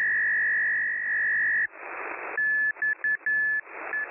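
Shortwave Morse code beacon from the Chinese coast station XSQ (Guangzhou Radio), received in upper sideband as a single whistling tone. The tone is held steady for under two seconds, then after a burst of static hiss it keys on and off in dots and dashes, with hiss filling the gaps.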